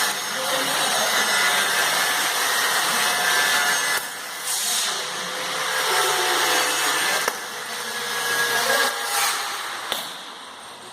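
Oxyacetylene welding torch flame hissing steadily, its level dipping and swelling and falling away near the end.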